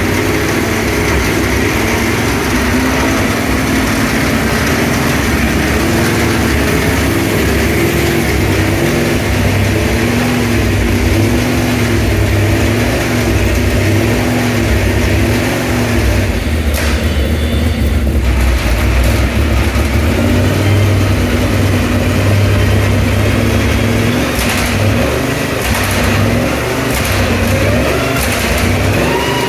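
Nissan V8 of a Duquesne D08 LMP3 race car running at idle with its bodywork off, the engine note wavering slightly up and down.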